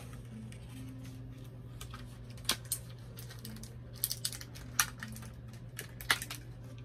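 Small plastic doll accessories and a clear plastic bag being handled: a few sharp clicks and crinkles from about two and a half seconds in, over a steady low hum.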